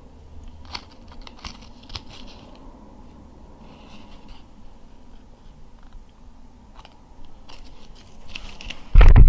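Cigar being puffed: faint lip smacks and soft clicks. Near the end comes a sudden loud rush of low noise.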